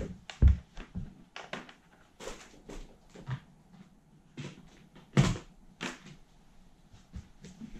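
Handling noise from a mains power cable being moved and plugged in: a string of separate knocks and rustles, with a low thump about half a second in and a sharp knock about five seconds in.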